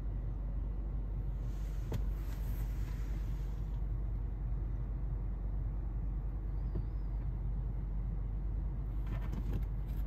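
Steady low rumble inside a car cabin. Light rustling and a sharp click about two seconds in, and a few more clicks near the end, from a sneaker being handled.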